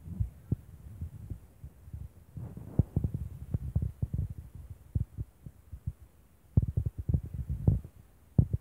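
Irregular low thumps and rumbles on a phone's microphone. They come in clusters, the busiest about halfway through and again near the end.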